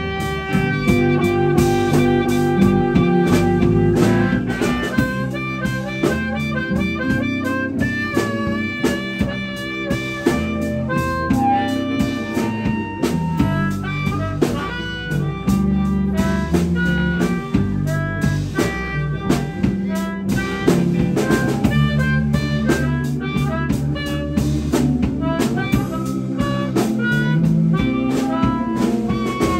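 Live blues band: an amplified harmonica solo, played cupped against a handheld microphone, with bending melodic notes over electric guitar, bass guitar and a drum kit.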